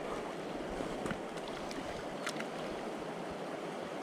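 Steady wash of the fast-flowing River Spey running past, with a few faint clicks.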